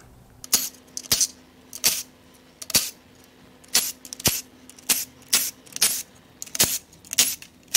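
Sharp metallic clinks of loose steel bolts as the oil pan bolts are taken out and set down on metal: about a dozen separate clinks at uneven intervals.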